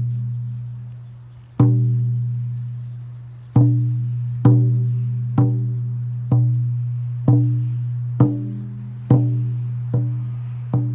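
A hand drum struck in a slow, steady beat, each stroke a deep ringing tone that fades before the next. The first strokes come about two seconds apart, then settle to about one a second.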